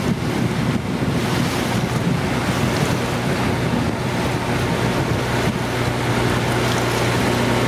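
River cruise boat's engine running at a steady low hum while under way, with water rushing past the hull and wind buffeting the microphone.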